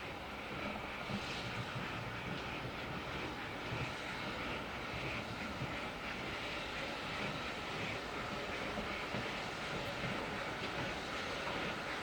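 Steam locomotive running, a steady rushing noise that grows slightly louder.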